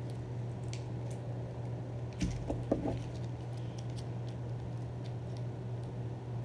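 Small plastic scissors snipping and crinkling a plastic packet: a quick run of clicks and crinkles a little over two seconds in, with fainter ticks around it, over a steady low hum.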